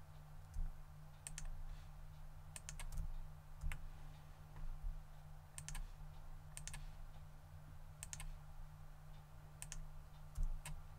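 Faint clicks of a computer mouse and keyboard, scattered and often in quick pairs, as selections are made with Shift+Alt+right-click, over a low steady hum.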